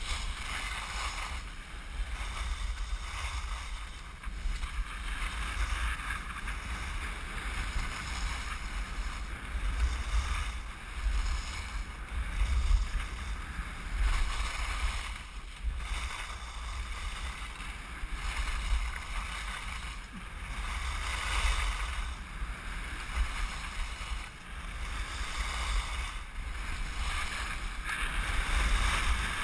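Skis hissing and scraping over groomed snow, the hiss swelling and fading with the turns, over a steady low rumble of wind on the microphone.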